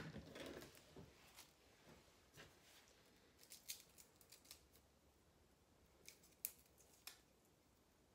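A kitchen knife set down on a wooden cutting board with one sharp knock, then faint, scattered crisp crackles as a garlic clove's papery skin is peeled off by hand.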